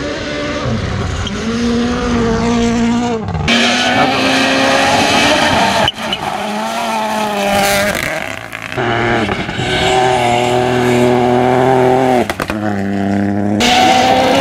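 Rally cars going flat out on a gravel stage, heard in several short cut-together passes: engine notes rising and falling as they accelerate and change gear, with a hiss of tyres and thrown gravel.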